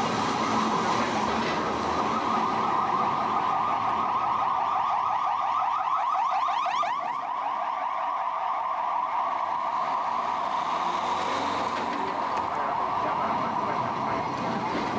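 Vintage tram's steel wheels squealing against curved rails: a steady, high, wavering squeal, with a flurry of quick rising streaks about seven seconds in.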